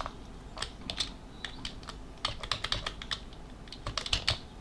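Typing on a computer keyboard: irregular keystrokes, some in quick runs, while code is being edited.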